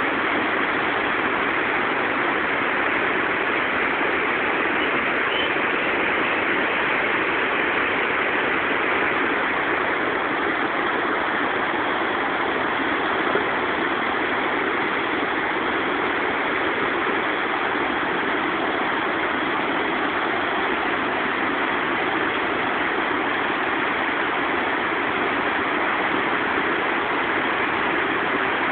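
Whitewater rapids of the Potomac River at Great Falls, rushing water making a steady, even noise that does not change.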